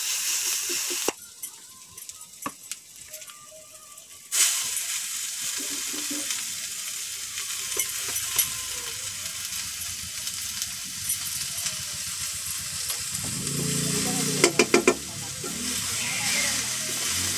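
Oil sizzling in an iron kadhai as onion, garlic and then chopped spinach fry, with a spatula stirring and scraping in the pan. The sizzle drops away for a few seconds about a second in, and near the end the spatula knocks sharply on the pan several times.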